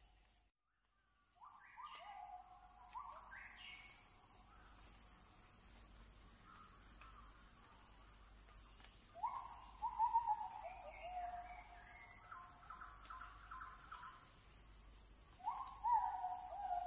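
A bird calling in three bouts of short notes that each fall in pitch, over a steady high-pitched insect drone.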